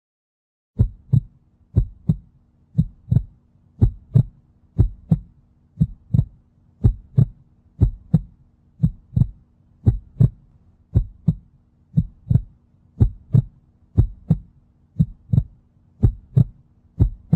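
A heartbeat-like pulse: a deep double thump about once a second over a low steady hum, starting just under a second in.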